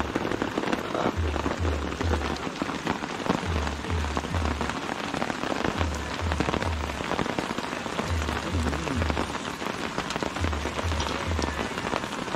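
A steady crackling hiss under background music, whose low bass pulses come in groups of three about every two and a half seconds.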